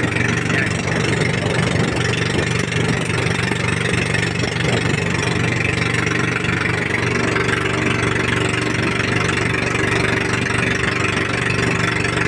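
Inboard engine of a motorized outrigger fishing boat (bangka) running steadily under way, a constant low hum over a steady hiss of wind and water rushing past the hull.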